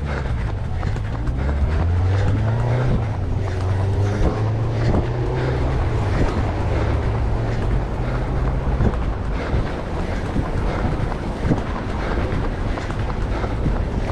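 A motor vehicle's engine running with a low hum for about the first nine seconds, its pitch rising a couple of seconds in, over wind buffeting the microphone.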